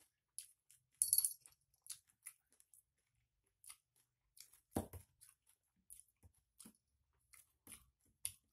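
Scattered faint clicks and taps in a small room, with a brief bright jingling clink about a second in and a single louder knock near five seconds.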